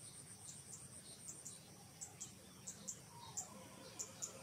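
Faint outdoor insect drone: a steady high-pitched whine, with short high chirps coming in pairs about every two-thirds of a second.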